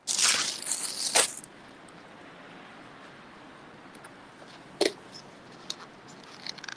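Knife cutting into roast pork with a crunching, crackling sound for about a second and a half, followed by a few light knocks, the clearest about five seconds in.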